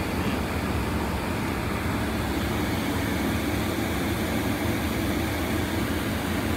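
Steady low mechanical hum, as from a motor running at a constant speed, with no separate events standing out.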